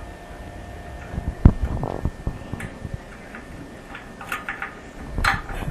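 Light clicks and knocks of toilet tank-to-bowl bolts and washers being handled and fitted at the tank, with a heavier thump about one and a half seconds in and a run of small clicks near the end.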